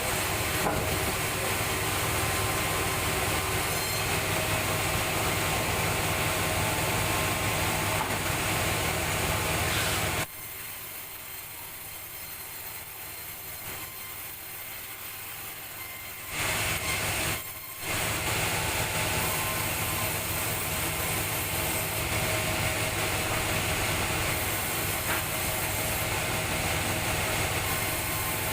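Sawmill machinery running steadily, a dense mechanical din with a steady hum. It cuts abruptly to a much quieter level about ten seconds in, then returns to the full din some seven seconds later.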